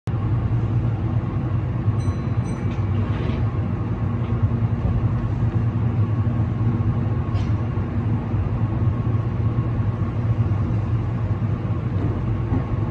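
Steady low rumble and electrical hum inside the cab of a Meitetsu 3600-series electric train as it stands at the platform and then starts to pull away. A few brief high beeps come about two seconds in.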